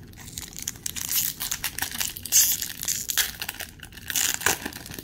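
Foil Pokémon booster pack wrapper crinkling and tearing as it is opened by hand, a dense run of crackles.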